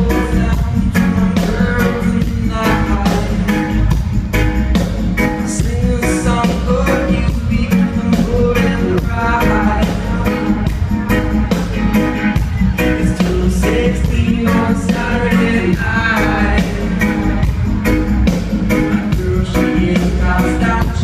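A live reggae band playing loud, with a singer's voice over electric guitar, keyboards and a steady drum beat.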